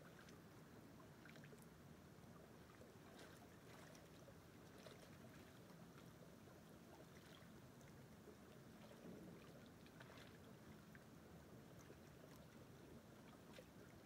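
Faint, steady rush of a small creek flowing between ice shelves, with scattered small splashes and ticks.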